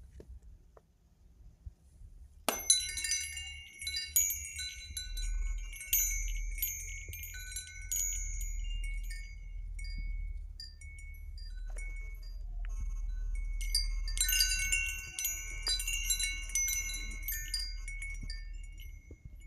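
Wind chimes ringing, many high tones struck over and over, starting suddenly about two and a half seconds in. They thin out to a few scattered notes in the middle, then pick up again in a second flurry.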